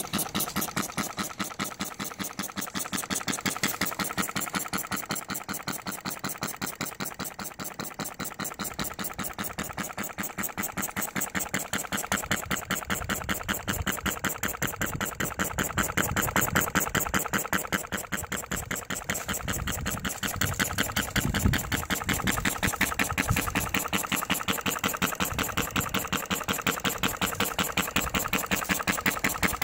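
Model Atkinson-cycle engine with a 10-inch flywheel running steadily, giving a fast, even mechanical clatter.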